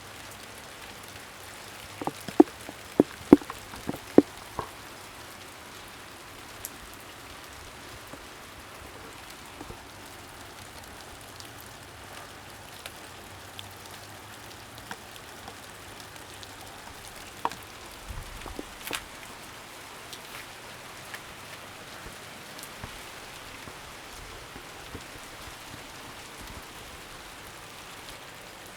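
Steady rain falling, with individual close raindrops tapping out of the hiss; a quick run of loud drops comes about two to four seconds in, and a few more near the middle.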